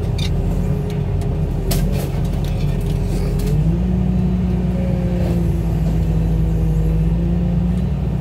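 Wheel loader's diesel engine running steadily, heard from its open cab; the engine note steps up about three and a half seconds in as the machine moves off. A few sharp knocks sound between two and three and a half seconds in.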